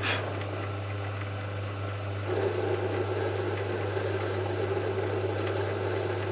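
Small lathe running with a steady motor hum. About two seconds in, a rougher, grinding cutting noise joins and holds as the tool takes a light facing skim.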